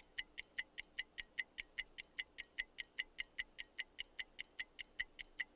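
Countdown-timer ticking sound effect, a clock tick repeating steadily at about five ticks a second.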